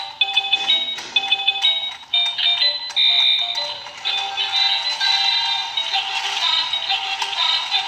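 Tinny electronic tune with a synthesized singing voice from a Happy Dog stair-climbing race-track toy's built-in speaker. Plastic clicking and rattling of the moving stairs can be heard in the first two seconds.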